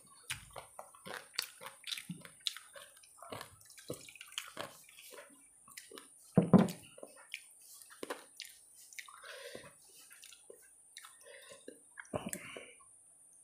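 Close-up eating sounds: many short wet clicks and smacks of a hand scooping egg-potato curry and working it into rice, with chewing. There is one louder wet squelch about six and a half seconds in.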